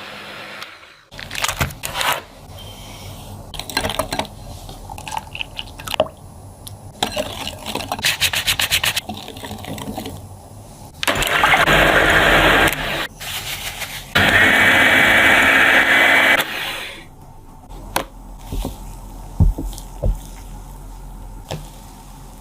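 Kitchen food-preparation sounds: clicks and knocks of utensils and containers. Two loud stretches of steady rushing noise come about eleven and fourteen seconds in, the second with a steady whine.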